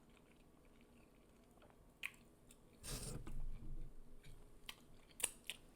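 Close-up chewing and biting of chicken wings: scattered wet mouth clicks, with a louder bite-and-chew stretch about three seconds in.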